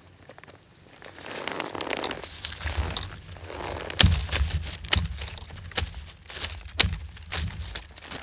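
Close rustling and crunching that builds after about a second, then a run of sharp knocks and thuds from about four seconds in.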